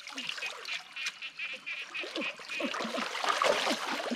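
Water splashing and sloshing as a woven bamboo basket and hands scoop through a shallow muddy stream. Short animal calls repeat over it, quickest in the first half.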